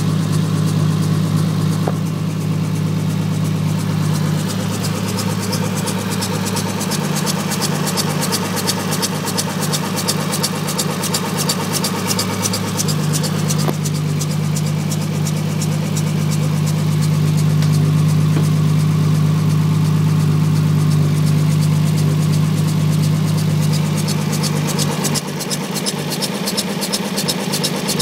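Toyota 2JZ-GTE twin-turbo inline-six idling steadily with the accessory drive belt off, over a fast, even ticking. The owner traces a strange noise to the timing belt assembly. The engine note swells a little about two-thirds of the way in and eases near the end.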